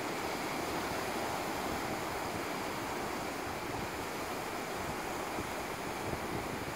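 Surf breaking and washing up onto a sandy beach: a steady rush of waves.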